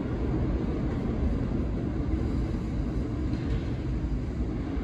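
Subway A train running away down the tunnel as it leaves the station: a steady, mostly low rumble of wheels on rail that eases off slightly as it goes.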